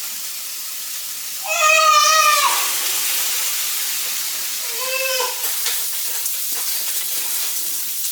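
Food sizzling steadily in a frying pan, with a young child's high-pitched whiny cries twice: a longer, louder one about a second and a half in and a short one about five seconds in.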